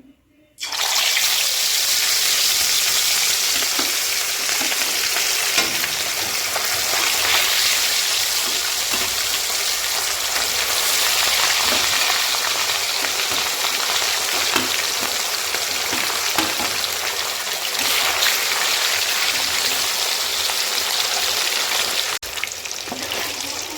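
Pieces of rohu fish frying in hot oil, a steady, dense sizzle that starts about a second in.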